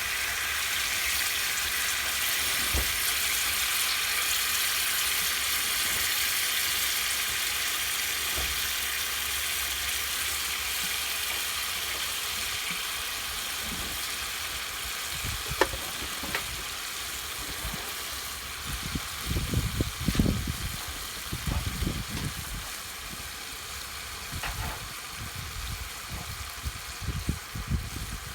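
Steak sizzling on a grill over a fire-pit stand, a steady hiss that eases off gradually. From about two-thirds of the way in, irregular low thumps come through as well.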